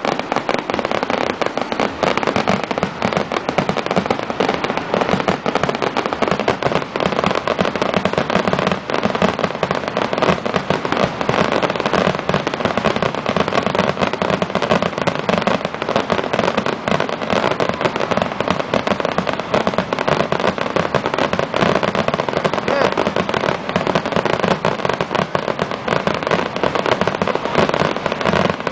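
Rapid, unbroken barrage of aerial firework shells bursting and crackling, many reports a second overlapping.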